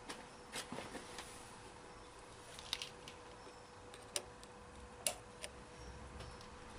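Scattered light clicks and taps of metal parts and hand tools being handled, about eight in all and irregularly spaced, over a faint steady hum.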